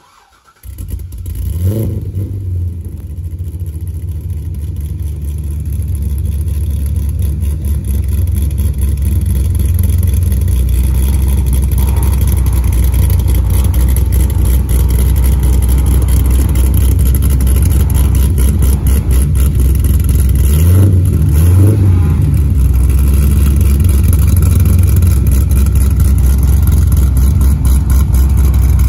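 2008 Corvette C6 Z06's LS7 V8, fitted with LG headers and an Akrapovic titanium exhaust, starts up with a quick flare in revs and settles into a loud, lumpy idle. About twenty seconds in, the throttle is blipped twice in quick succession before it returns to idle.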